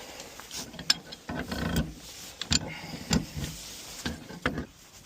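Metal tools working a threaded gas-pipe fitting: a few sharp metallic clicks and knocks between short stretches of scraping as the fitting is turned.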